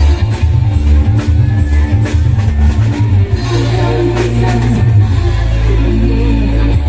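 Loud live electone keyboard music: an instrumental passage with a heavy pulsing bass line, a steady drum beat and melody lines.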